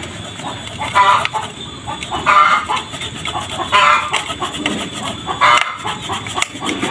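Fresh turmeric rhizome being grated by hand on a grater: rhythmic rasping strokes, about one every second and a half.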